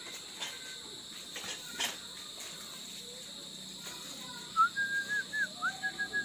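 Steady high drone of night insects such as crickets, with a quick run of about ten short chirps starting in the second half.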